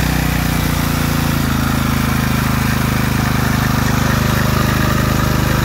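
Generac MegaForce 6500 portable generator's 13 hp engine running steadily, then dropping to a lower speed between about half a second and a second and a half in: the idle control idling it down once the electrical load is switched off.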